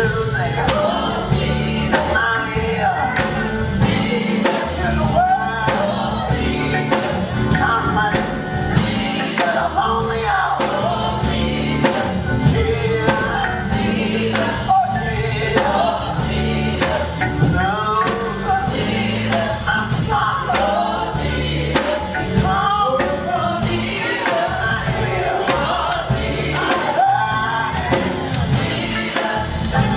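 Recorded gospel quartet song playing: group vocals over a band with a steady beat and a walking bass line.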